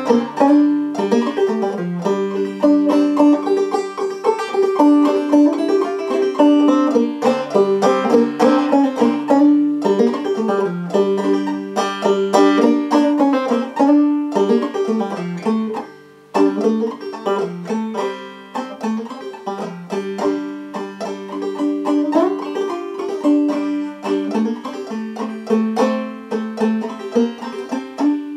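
Solo Gold Tone five-string banjo played clawhammer style: an old-time tune in G modal tuning, with quick, continuous plucked notes and a brief break about halfway through.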